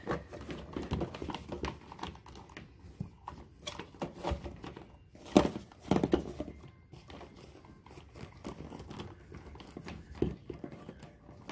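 Irregular rustling with scattered clicks and soft knocks, the loudest two about five and six seconds in: handling noise from a phone being moved about while filming.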